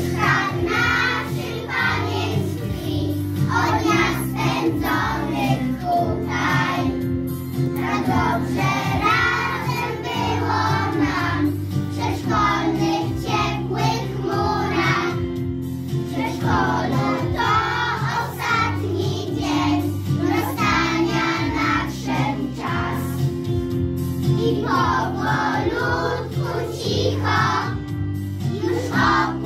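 A group of five- and six-year-old children singing a song together in unison over instrumental accompaniment with a steady bass line.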